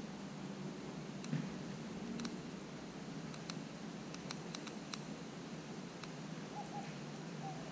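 Eastern gray squirrel eating, with sparse, irregular faint clicks of its nibbling over a steady background hiss. A couple of faint short chirps near the end.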